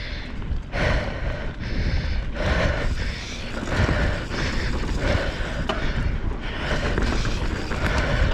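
Mountain bike riding down a dirt trail: tyre and bike noise coming in uneven surges over a low rumble, with a single sharp click a little before six seconds in.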